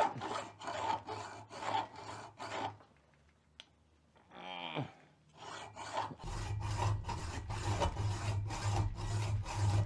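Hand hacksaw cutting through the steel shell of a VW Beetle ball joint pressed into the trailing arm, in steady back-and-forth strokes about three a second. The cut slices the shell to relieve its press fit so it can come out without a press. The strokes stop for about a second and a half near the middle, then start again.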